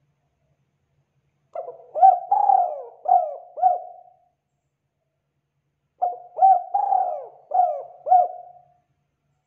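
Dove cooing: two matching phrases of about five short, rolling coos each, a couple of seconds apart.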